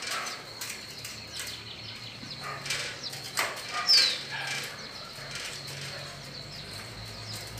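Faint clicks and scrapes of a hand screwdriver driving screws at a metal door's hinge. One short bird chirp, falling in pitch, comes about four seconds in, with a faint steady high insect-like tone behind.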